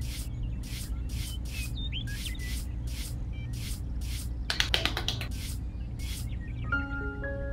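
Small hand trowel scraping across a sand surface in quick smoothing strokes, about two or three a second, with a rapid flurry of short scrapes about two thirds of the way through. Light xylophone-like music notes come in near the end.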